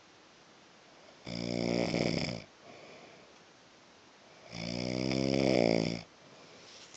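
A man snoring: two loud snores, one about a second in and a longer one about four and a half seconds in, with quiet breathing between them.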